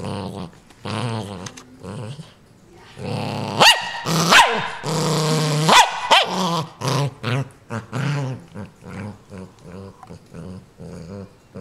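Small long-haired dog growling over a new stuffed toy, possessively guarding it. The growl rises into loud snarling outbursts a few seconds in, then settles into rapid pulsing growls.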